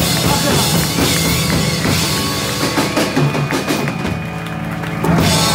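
Live rock band (two electric guitars, electric bass and drum kit) playing loudly. The drum hits thin out about four seconds in, and near the end a big hit comes in with the chord left ringing.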